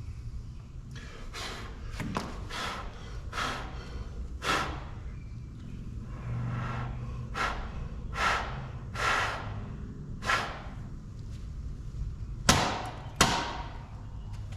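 A series of about a dozen short, breathy puffs of air at irregular intervals, the last two loudest, over a low steady hum.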